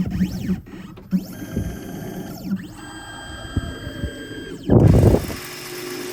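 Key-cutting machine cutting a Toyota door key: its motor whines up and down in pitch, with scattered clicks, and there is a louder burst of rumbling noise about five seconds in.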